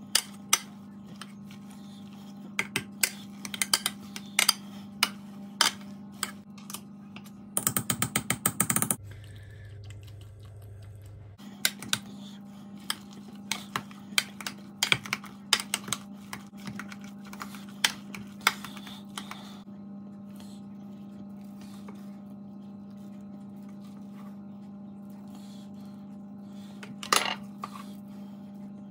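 Metal potato masher knocking against a stainless steel saucepan while boiled potatoes are mashed: an irregular series of sharp clanks, with a quick rattle of strikes about eight seconds in. The knocks thin out after about twenty seconds, with one louder knock near the end, over a steady low hum.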